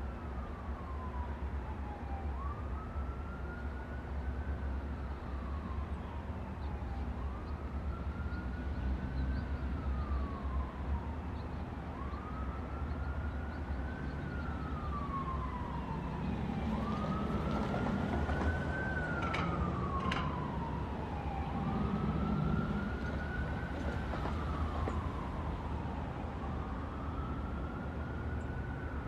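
A siren wailing in slow cycles, each a quick rise to a high pitch followed by a longer fall, repeating about every five seconds. Under it is a low, steady rumble from the approaching train.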